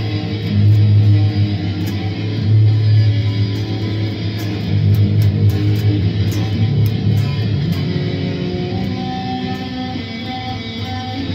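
Electric guitar being played, with strong low notes struck about every two seconds, then quieter, higher notes over the last few seconds.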